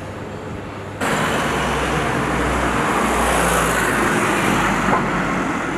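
Road traffic noise that starts abruptly about a second in: a vehicle passing, its engine rumble and tyre noise swelling and then easing off.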